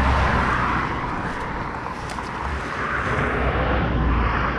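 Cars passing on the road. Their tyre noise swells near the start and again about three to four seconds in, over a steady low rumble.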